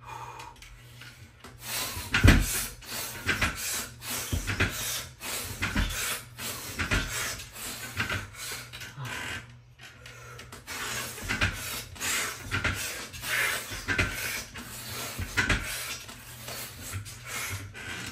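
A set of pull-ups on a bar: a repeating pattern of knocks, rubbing and short noisy bursts, about one every second or two, as the reps go on.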